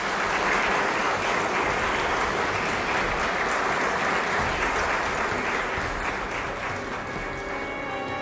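A roomful of people applauding, many hands clapping in a dense steady patter that starts abruptly and eases slightly toward the end.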